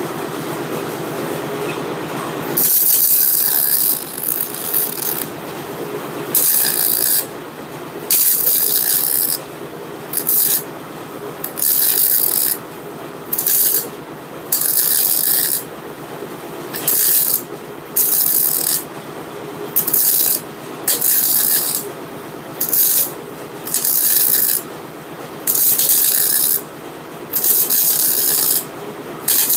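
MIG welding arc crackling in short runs of about half a second to a second, with brief pauses between them, as a bead is laid on the steel housing of an Eaton truck rear axle. The runs start about two and a half seconds in, after a steadier lower hum.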